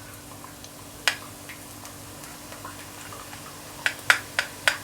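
Metal spoon clicking against a slotted spoon as gram-flour batter is swirled over it to drip boondi into hot oil: one click about a second in, then four quick clicks near the end, over a steady low hum.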